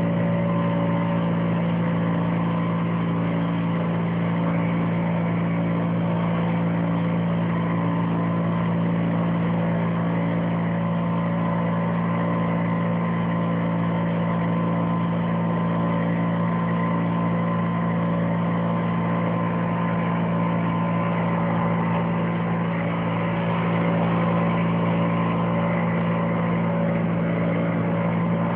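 An engine running steadily at one constant speed, a continuous hum that never rises or falls.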